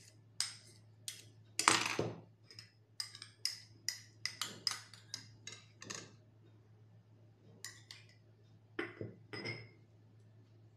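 Metal spoon clinking and scraping against a small glass bowl while scooping out grated apple: a quick run of light taps, about two a second for some six seconds, then a few more taps near the end.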